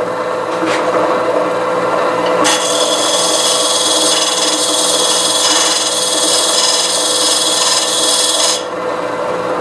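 Benchtop bandsaw motor running with the blade off, spinning the bare wheels with a steady hum. From about two and a half seconds in until near the end, a hand tool held against the spinning lower wheel scrapes with a harsh hiss, cleaning leftover rotted tire rubber and glue out of the wheel's tire groove.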